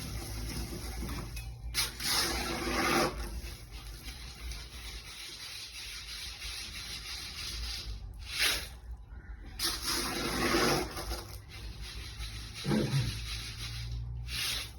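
Water poured and splashing in several bursts of about a second each, over a steady low hum.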